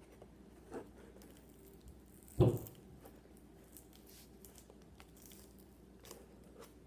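Table knife scraping and cutting at a cardboard box to get it open, with faint scratches and crinkles of the packaging. One sudden loud thump comes about two and a half seconds in.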